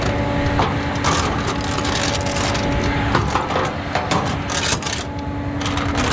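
A run of irregular knocks, clicks and rattles over a steady hum.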